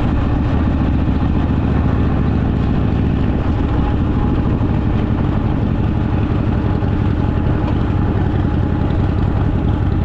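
Motorcycle engine running at a steady cruise while riding along, with even road and wind noise.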